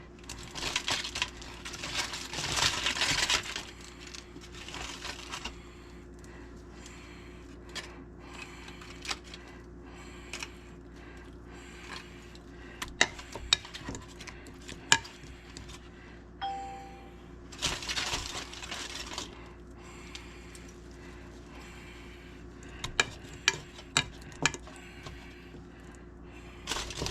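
Kitchen work sounds: scattered clinks and knocks of dishes and utensils, with two stretches of scraping and rustling, as dough balls are dipped in melted butter and set in a pan. A brief tone sounds about halfway through, over a faint steady hum.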